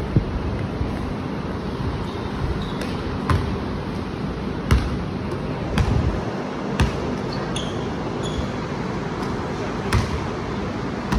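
Basketball bouncing on a hardwood gym floor: single sharp thuds, about six of them spaced irregularly a second or more apart, over a steady background hiss.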